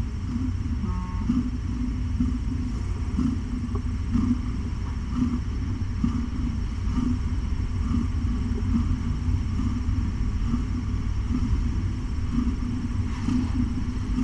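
Cat purring: a steady low rumble with soft pulses about once a second.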